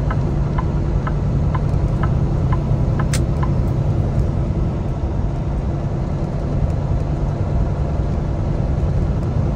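Steady drone of engine and road noise inside a Kenworth T680 semi-truck cab at highway speed. A light regular ticking, about three a second, runs under it and stops about three seconds in, with one sharp click at that point.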